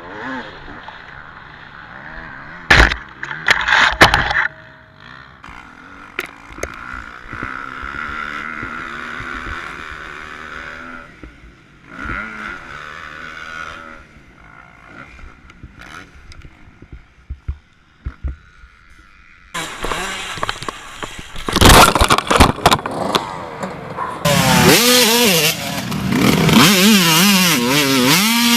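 Motocross dirt bike engines revving, their pitch rising and falling, with sharp knocks about three and four seconds in. The loudest part comes in the last third: a noisy stretch with more knocks and engines revving hard.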